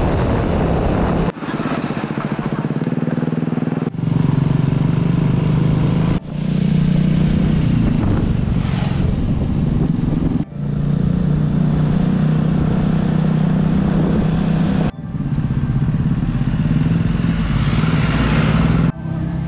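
Motor scooter engine running steadily while being ridden, heard in a series of short clips, each ending in an abrupt cut every few seconds.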